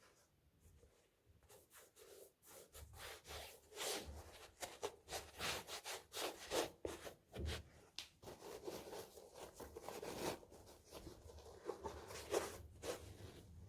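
Trainers and their packaging being handled by hand: irregular rustling and rubbing with light knocks.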